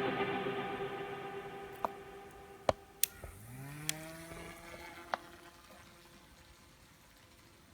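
Background music fading out, with several sharp clicks. About three seconds in, a small electric motor whirs up to speed, runs steadily for about a second and fades away.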